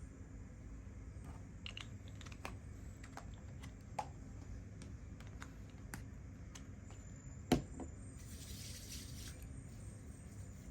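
Scattered light clicks and taps over a low steady hum, with one sharper knock about two-thirds of the way through, followed by a short hiss.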